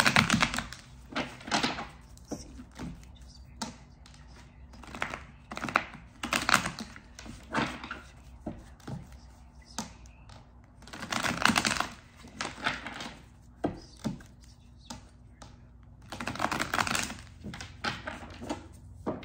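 Tarot cards being shuffled by hand: about four bouts of rapid clicking and slapping card sounds, with short pauses between.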